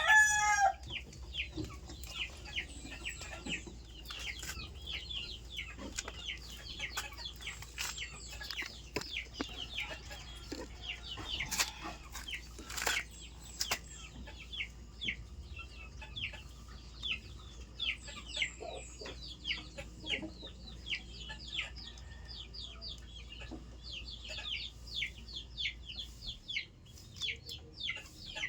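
Chickens clucking, with many short high peeps repeating throughout. A rooster's crow trails off right at the start, and two sharp knocks come about midway.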